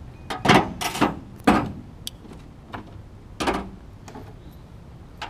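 Several sharp clunks and knocks, about five in the first four seconds, from the kayak's landing gear wheel cart being handled and settled into the gear track mount.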